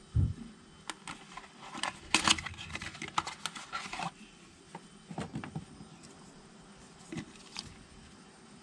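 Handling a new oil filter and its cardboard box: a dull thump right at the start, then about three seconds of rustling, scraping and clicking card as the filter is slid out of the box. After that come a few scattered light clicks and taps as the clear plastic seal protector is pulled off the filter.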